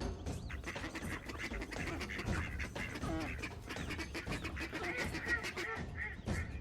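Animal calls with many sharp clicks and low knocks throughout.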